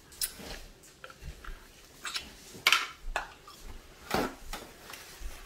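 Scattered clicks and knocks of a metal spoon against a plastic plate and table, with one sharp, loud knock about two and a half seconds in. About four seconds in comes a brief noisy rip as a paper towel is torn from its roll.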